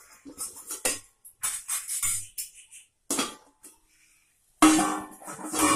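Steel lid clinking and scraping against a steel pan as it is lifted off, in irregular metallic clatters with a louder clatter near the end.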